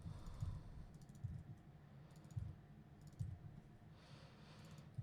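Faint computer keyboard typing: irregular clusters of keystrokes with pauses in between.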